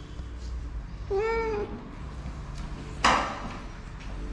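A domestic cat meows once, a short arched call about a second in, while it is being held and handled. About three seconds in comes a brief sudden noise, the loudest sound here, fading within half a second.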